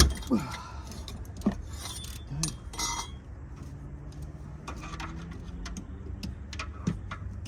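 Metal hand tools clinking and knocking on engine parts: scattered sharp clicks over a low steady hum, with the loudest knock right at the start.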